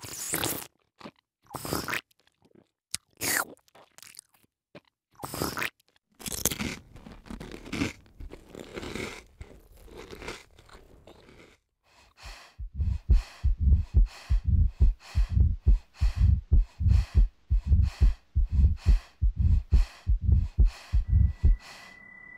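Close-up eating sounds: scattered crunches and bites, then from about halfway a steady chewing rhythm, about two chews a second, each with a low thud and a crisp crunch, that stops shortly before the end.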